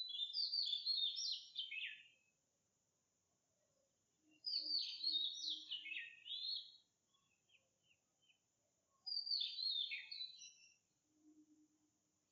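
Magpie calling: three phrases of quick, mostly falling notes, each about two seconds long, with a few seconds of quiet between them.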